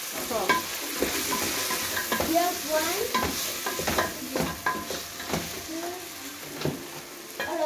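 A wooden spoon stirring meat and tomato stew in a large aluminium pot, knocking and scraping irregularly against the pot, over the steady sizzle of the stew frying.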